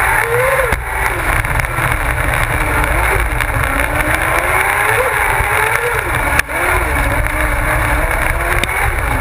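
Kart cross's motorcycle engine at race pace on a dirt track, its revs rising and falling through the corners, with a brief sharp cut about six and a half seconds in. It is heard from a camera on the kart's nose, over heavy low rumble and wind noise.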